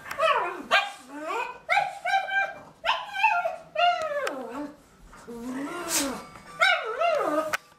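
Dogs barking and whining excitedly: a rapid string of short calls, several sliding down in pitch, with a couple of sharp yelps near the end.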